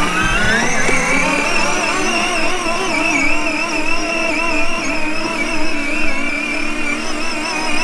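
Battery-powered Mercedes-AMG ride-on toy car driving across grass, its electric drive whining. The pitch rises over about the first second as the car picks up speed, then holds steady with a slight waver.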